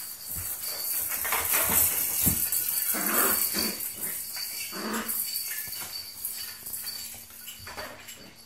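Six-week-old Smooth Collie puppies play-fighting, giving short play growls and yelps, loudest a few seconds in. Small clicks and rattles from the plastic toys on the play gym being knocked and claws on the wooden floor run through it.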